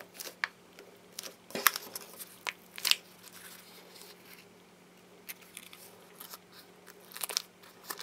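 Light crinkling and crackling of a pleated paper cupcake wrapper as fingers squeeze and turn a foam squishy toy, in scattered crackles that thin out in the middle and pick up again near the end.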